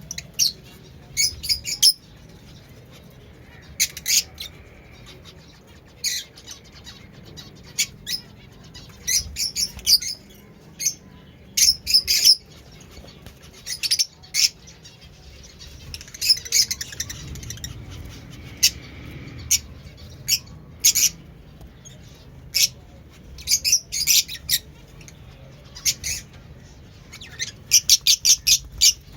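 Fischer's lovebird chirping: short, sharp, high-pitched calls in quick clusters of several at a time, repeated every second or two.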